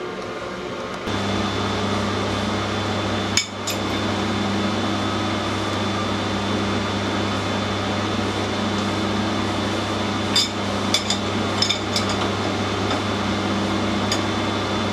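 An electric workshop machine motor switched on about a second in and running with a steady hum. Short metallic clinks of tools on metal sound over it, a sharp knock about three seconds in and a cluster of clinks around ten to twelve seconds in.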